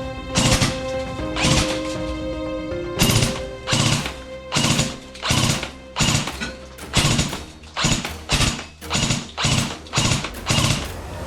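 Background music with a heavy, regular beat over held synth notes.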